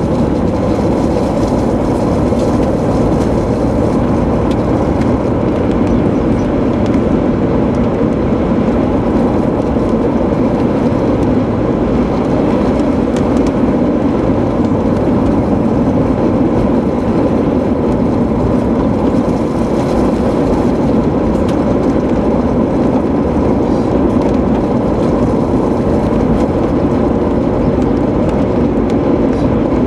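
Steady road and engine noise inside a moving car.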